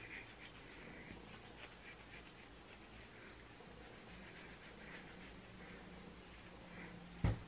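Faint scratchy rustling of fingers rubbing through sisterlocks at the scalp, fluffing the roots to break up the parts. A single short knock near the end.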